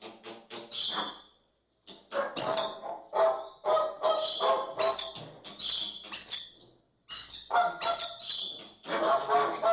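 American flamingos calling: rapid runs of short, nasal honking calls, in bursts separated by brief silences about a second and a half in and about seven seconds in.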